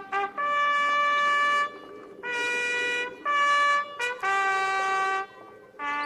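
A bugle call played on a brass horn: a slow phrase of about seven separate notes, mostly long and held, with a few short pickup notes, moving among a few notes of the bugle's scale.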